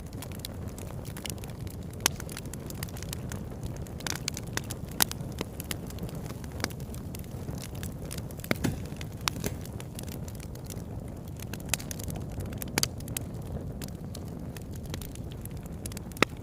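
Irregular sharp crackles and pops over a steady low rumbling noise, the loudest pop near the end.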